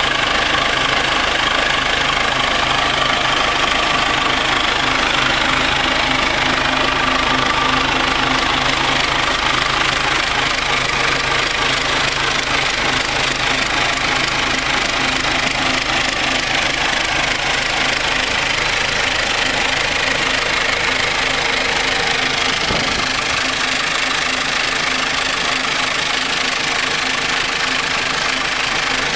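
John Deere 6200 tractor's diesel engine idling steadily.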